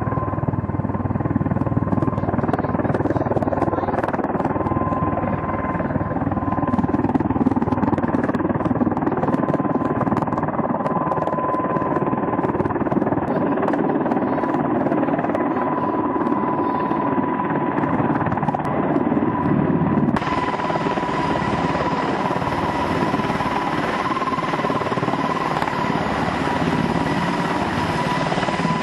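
Helicopter running close by as it hovers low: a steady rush of rotor and engine noise with a constant high whine. About two-thirds of the way in the sound turns abruptly brighter and hissier.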